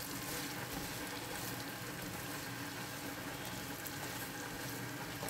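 Onions, garlic, mushrooms and bacon frying in butter in a pan, with a steady, even sizzle.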